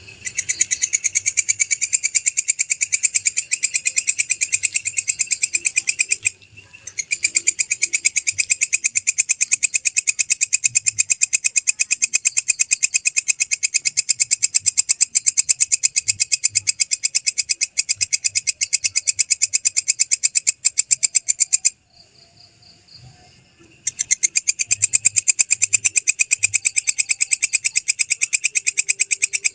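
Walang kecek katydid calling: a fast, continuous train of high, dry chirping pulses, broken by a brief pause about six seconds in and a pause of about two seconds a little past twenty seconds.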